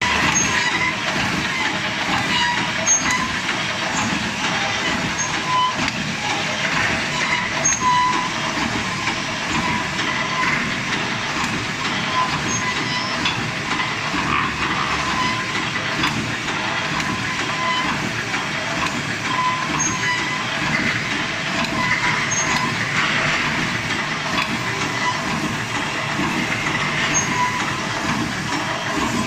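Welded wire mesh roll machine running: a steady, dense mechanical clatter as it welds wire into fence mesh and winds it onto the roll, with short sharp blips scattered through it.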